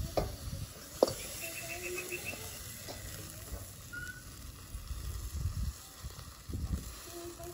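Rib eye steak sizzling on a charcoal kettle grill's grate while it is seared on its edge, held in metal tongs. A sharp click about a second in.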